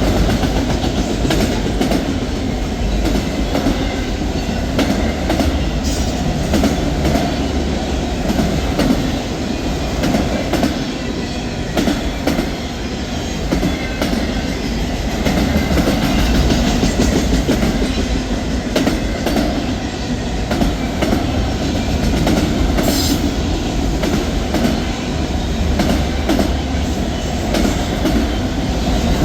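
Freight train cars rolling past, with a steady rumble and the wheels clicking over rail joints. A brief high wheel squeal about three quarters of the way through.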